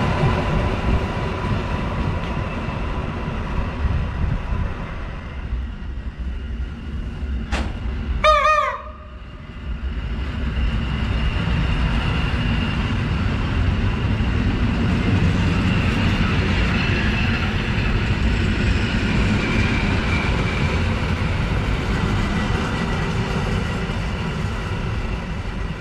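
EN57 electric multiple unit running along the platform: steady rumble and rail noise with a faint steady whine. About eight seconds in there is a brief, loud pitched sound and a short dip, after which the running noise carries on.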